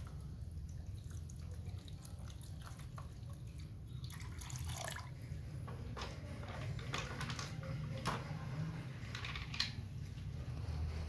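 A rusty steel chain being lowered into a tub of oil: its links clink against each other and splash and drip into the liquid in a run of sharp clicks from about four seconds in. A steady low hum runs underneath.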